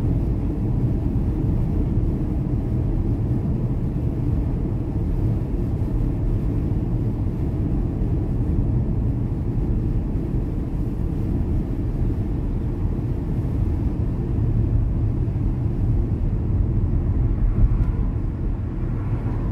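Steady low rumble of a car driving at street speed, road and tyre noise heard from inside the cabin.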